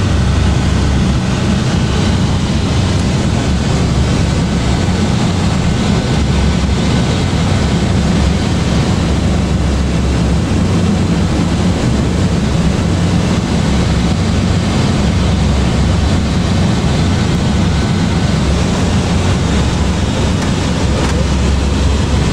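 A C-130's four Allison T56 turboprop engines and propellers droning steadily in cruise flight, heard inside the flight deck: a deep, even drone with a hiss over it.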